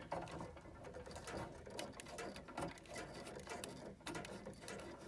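Faint, irregular small clicks and scrapes of hand work on a gas furnace's pilot tube fitting as it is threaded in.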